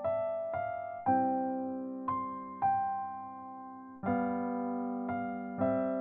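Background music on a soft piano-like keyboard: notes and chords struck one after another, roughly every half second to second, each left to ring and fade.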